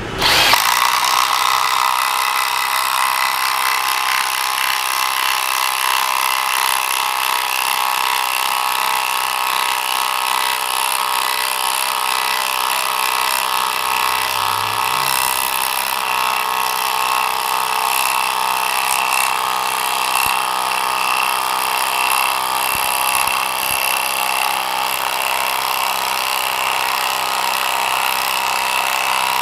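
Milwaukee M12 FUEL (M12 FID) cordless impact driver hammering steadily without letup as it drives a long 10 mm screw, 15 cm long, by socket into a hardwood block. The tool is under heavy sustained load, run again and again to drain its 2.0 Ah battery.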